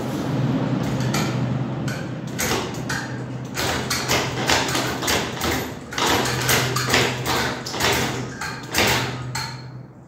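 Royal Deluxe ceiling fan starting up on an oversized 7.5 µF capacitor (stock is 3.5 µF): a steady motor hum with repeated whooshes of air from the blades that come quicker as it gathers speed. The larger capacitor drives it at a much higher speed than normal.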